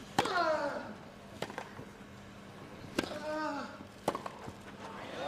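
Tennis rally on a grass court: four racket strikes on the ball about every one to one and a half seconds, the near player giving a short grunt falling in pitch with two of his shots. Crowd applause starts to swell right at the end as the point finishes.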